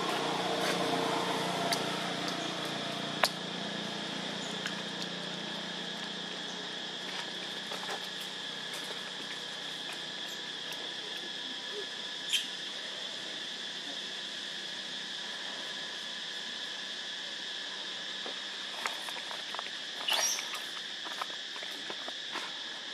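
Steady high-pitched insect chorus drone, holding two constant pitches. Scattered sharp clicks and a short high squeak rise over it about twenty seconds in.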